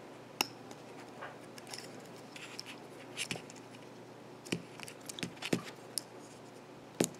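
Scattered small clicks and scrapes of plastic parts in the fingers as the antenna is worked out of a DJI Mavic 2 drone arm, about half a dozen sharp ticks spread unevenly across a few seconds.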